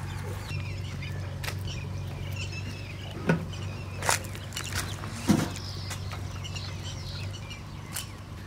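Small birds chirping in the background over a low steady hum, with a few sharp knocks at irregular intervals, the loudest about five seconds in.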